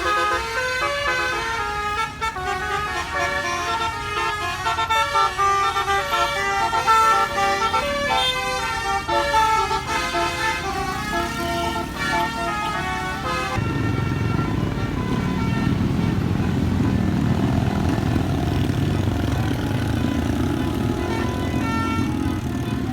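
Bus basuri musical horn playing a tune in quick stepped notes for about thirteen seconds. After it stops, the bus engine runs with a low rumble.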